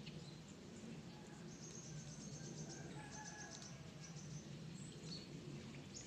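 Faint bird calls: quick high chirps and twitters, thickest in the middle, with a few thin lower whistles, over a steady low hum.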